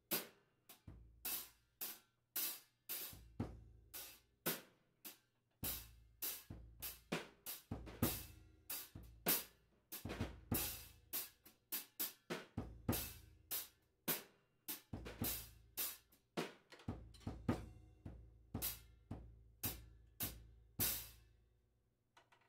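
Drum kit played in a steady beat of snare and bass drum with repeated ringing crash cymbal hits. The crashes being demonstrated are a 17-inch Sabian HH crash ride with tape added and a 16-inch Zildjian A medium heavy. The playing stops shortly before the end.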